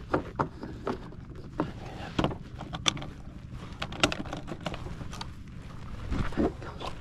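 Scattered clicks and knocks of hands working a stalled snowmobile's handlebar controls and dash, over a faint steady low hum.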